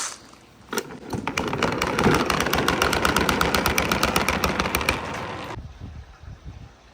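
Marbles clattering down a wooden marble run: a rapid, even train of clicks, about ten a second, over a rolling rumble. The clicks start about a second in and cut off suddenly near the end, leaving a fainter rolling sound.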